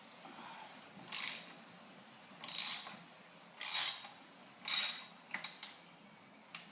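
Socket ratchet wrench clicking on its back-swings: four rasping strokes about a second apart, then a few quick clicks, as the fork clamp bolts on a Harley-Davidson Sportster 1200 are loosened.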